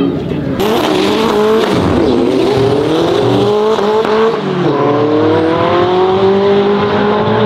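Highly tuned Nissan Skyline R34 GT-R straight-six pulling away under power. Its note rises, drops sharply at each shift of the sequential gearbox (twice, near two seconds in and again past the middle), and climbs again. The engine sound begins abruptly about half a second in.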